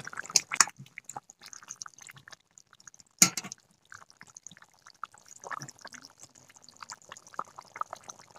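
Chicken curry bubbling in an open metal karai: a scatter of small pops and sputters, with one sharp click about three seconds in.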